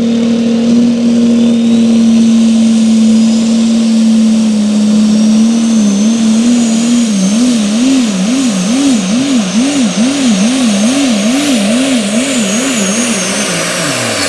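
Modified diesel pulling truck's engine at full throttle under the sled's load, with a faint high whistle above it. Its pitch holds steady at first, then from about halfway swings up and down rhythmically, about twice a second, as the truck surges down the track.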